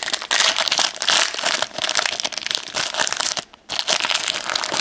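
Plastic trading-card pack wrapper crinkling and crackling as it is handled and crumpled, with a short pause about three and a half seconds in.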